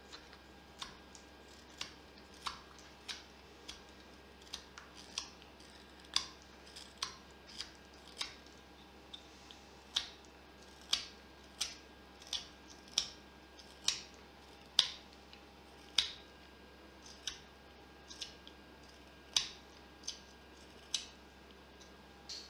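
Carving knife slicing shavings from a butternut blank: a series of short, crisp cuts, roughly one a second, louder in the second half.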